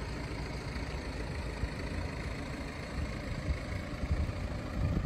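BMW X4 engine idling steadily.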